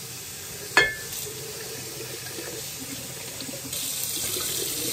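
Kitchen tap running into a sink, with one sharp clink about a second in; the water grows louder near the end.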